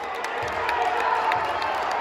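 Basketball crowd in a school gym cheering and shouting, a steady din of many voices with a few short sharp clicks above it.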